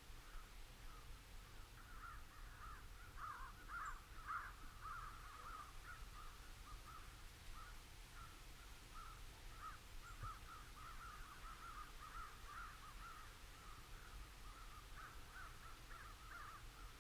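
Faint chorus of many crows cawing, short overlapping calls that run on without pause and bunch up about three to four seconds in, over a low steady background rumble.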